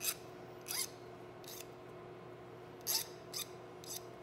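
A hand file drawn in short, light strokes across a small cast rifle front sight, taking burrs off its base: about six brief metal scrapes at uneven intervals.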